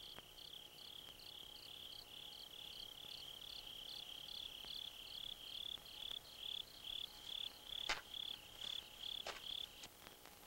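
A cricket chirping in a steady rhythm, about three short high chirps a second, as night ambience. Two sharp clicks come near the end, and the chirping stops shortly before the end.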